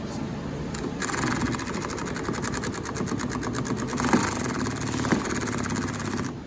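Small power driver running for about five seconds with a fast, even clicking, backing out the door handle's set screw; it starts about a second in and cuts off sharply near the end.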